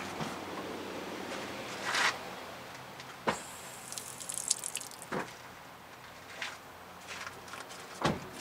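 Brake fluid squirting in a thin stream from the open bleeder screw of a rear disc-brake caliper as the brake pedal is pressed once: a short hiss about four seconds in. It shows the line is passing fluid and the bleed is working. A few sharp knocks are scattered around it.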